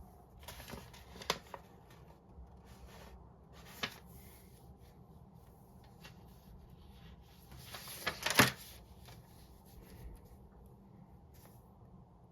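Note-taking at a desk: paper rustling with scattered taps and clicks from pen and stationery, the loudest cluster about eight seconds in, over a faint low steady background hum.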